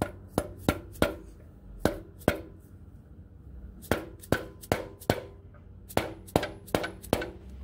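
Rubber mallet lightly tapping a steel impact socket, driving a new pilot bearing into the crankshaft bore. About fifteen sharp knocks come in short runs of two to four, each knock with a brief ring, with pauses between runs.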